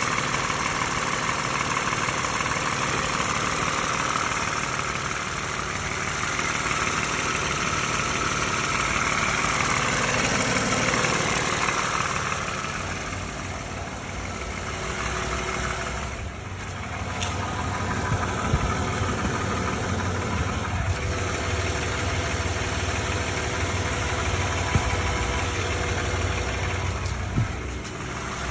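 Lexus RX350's 3.5-litre V6 engine idling with a rattle that the owner cannot identify, with a few short sharp clicks in the second half.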